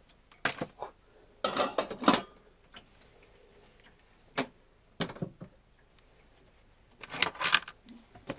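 Kitchenware being handled: a saucepan, its lid, a hot tin and plastic plates knocking and clinking. The sounds come as separate knocks, loudest in a cluster about two seconds in and again near the end.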